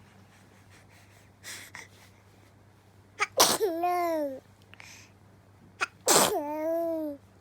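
A person sneezing twice, about three seconds apart. Each sneeze is a sharp burst followed by about a second of voiced tail that dips and then rises, and a soft intake of breath comes before the first.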